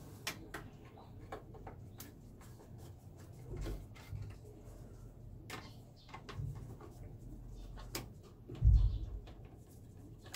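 Scattered light clicks and taps of a screwdriver working the fittings on a Yanmar diesel's turbocharger, with a few low dull thumps, the loudest near the end.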